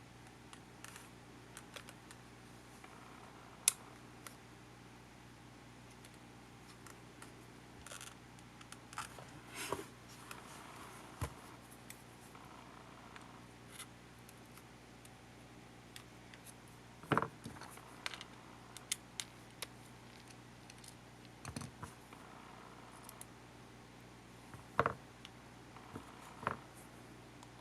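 Scattered small clicks and taps of tools and small parts being handled while a Panasonic HA-WA10 camcorder is taken apart, with a few louder knocks in the second half, over a steady low hum.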